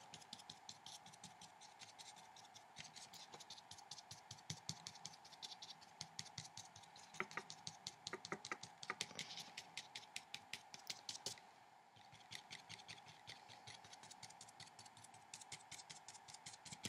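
Paintbrush dabbing and scratching on paper: faint, rapid little taps, with a short pause about two-thirds of the way through.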